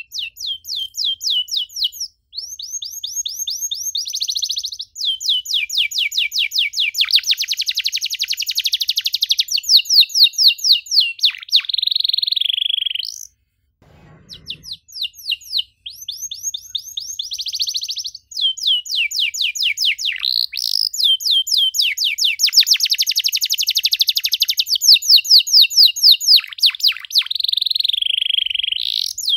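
Domestic canary singing long song phrases made of rapid trills and runs of quick repeated high notes. The singing breaks off about halfway, with a brief low thump in the gap, then a second long phrase follows.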